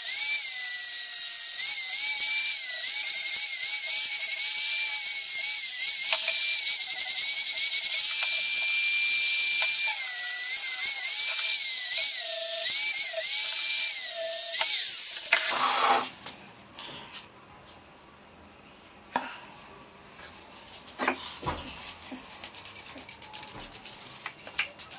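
Electric angle grinder with a sanding disc shaping a wooden axe handle: a loud high whine whose pitch dips again and again as the disc is pressed into the wood. It stops about sixteen seconds in. Quieter scattered scratching and light knocks follow as the sanding dust is brushed off the handle with a bristle brush.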